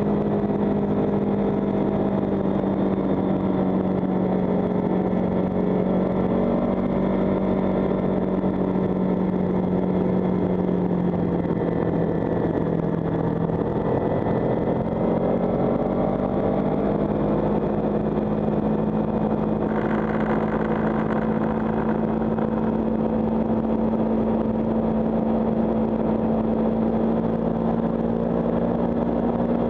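Kawasaki Ninja 300's parallel-twin engine running at steady cruising revs on the move. The engine note drops about halfway through and climbs back up a few seconds later.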